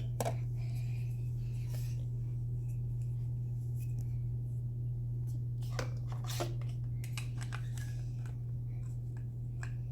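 Light clicks and taps of plastic toy kitchen pieces being handled, heard over a steady low hum.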